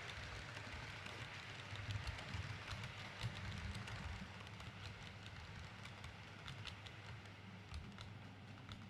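H0-scale model train running on the track: light, irregular clicking of the small wheels over rail joints and points, over a steady low hum.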